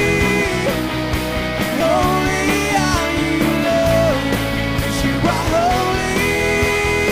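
Live rock worship music: a singer holding long notes over electric guitars and drums.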